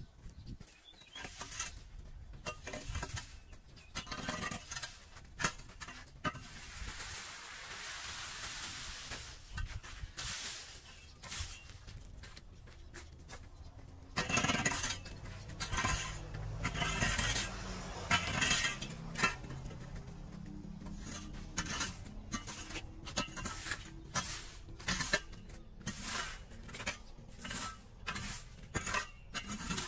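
A rake dragging dry leaves and twigs over a concrete sidewalk in repeated scraping strokes, with one longer drag about a quarter of the way in.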